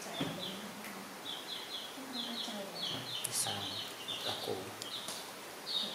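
Baby chicks peeping: a steady run of short, high, downward-sliding cheeps, several a second.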